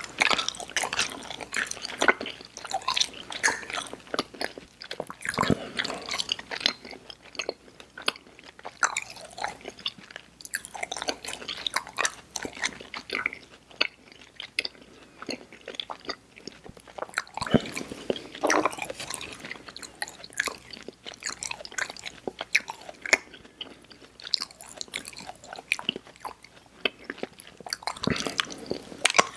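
Close-up mouth sounds of chewing Airheads Xtremes sour chewy candy: wet smacks and clicks in an irregular run, with a few heavier chews now and then.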